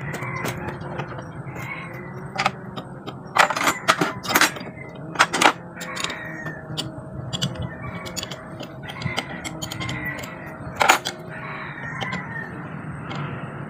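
Wrench working the U-bolt nuts that clamp a truck's rear axle to its leaf spring, with scattered metal clinks and clanks, a cluster of the loudest in the first half and another near the end.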